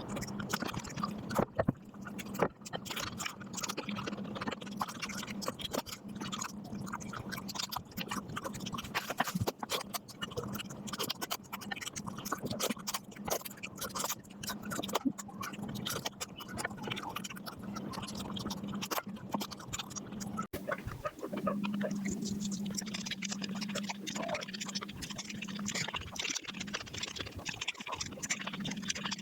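Eating sounds played back at five times normal speed: chewing and mouth noises come out as a dense, rapid run of clicks and crackles, over a steady low hum.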